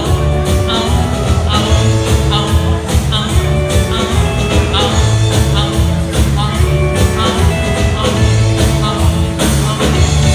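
Live band playing an instrumental passage on electric guitars, acoustic guitar and drum kit, with a steady drumbeat.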